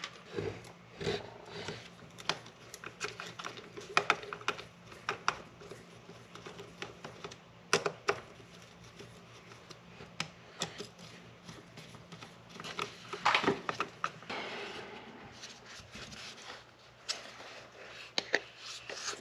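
Irregular clicks, taps and light knocks of plastic trimmer-head parts, metal washers and hand tools being picked up, fitted and set down on a workbench, with a denser run of knocks about two-thirds of the way through.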